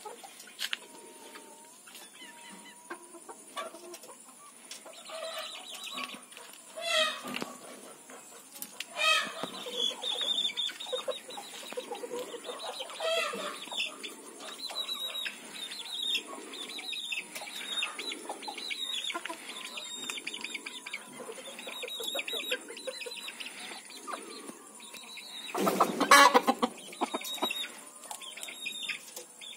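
Chickens clucking in short repeated calls, with a few louder squawks early on and a brief loud flurry near the end.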